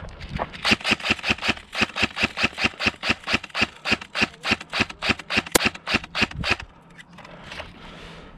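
Airsoft gun firing a fast string of shots, about five a second for some six seconds, then stopping.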